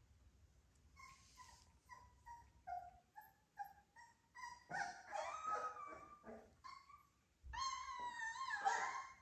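Three-week-old American Bully puppies whimpering: a run of short, high squeaks, about two a second, then louder, wavering cries, with the loudest long cry near the end.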